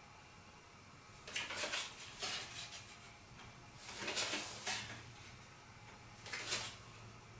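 Playing cards being handled: papery slides and flicks as cards are pulled from a deck, in three bursts, about a second and a half in, around four seconds in, and again near six and a half seconds.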